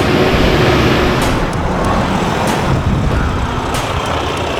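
Shacman X5000 tractor truck's Cummins diesel engine running, loud and steady, with a few brief sharp clicks.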